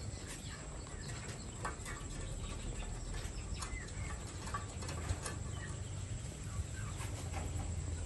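A litter of young puppies making short high squeaks amid scattered clicks and scuffles of small paws on concrete, over a low steady rumble.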